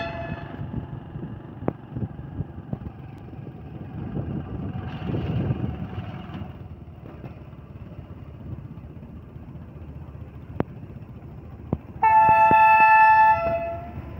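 Diesel locomotive's air horn giving one blast of about a second and a half near the end, a steady chord of at least two notes: the train's second departure whistle. Before it there is a low rumble with a few sharp clicks, and the tail of an earlier horn blast cuts off at the very start.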